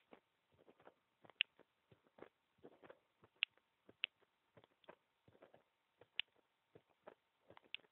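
Faint heartbeat picked up by a microphone pressed against a bare chest, heard as short irregular clicks and ticks several times a second, a few of them sharper than the rest.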